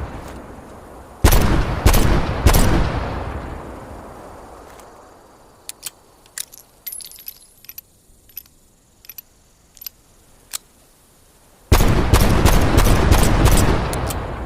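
Magnum revolver firing: three shots, each a little over half a second apart, with a long echoing tail. A few seconds of scattered light metallic clicks follow, then a fast volley of about six shots in quick succession near the end.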